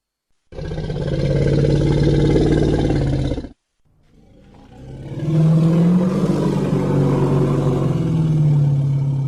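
Two deep Tyrannosaurus rex roar sound effects. The first starts abruptly about half a second in and cuts off after about three seconds. After a short pause, the second swells up and is held with a low, wavering pitch.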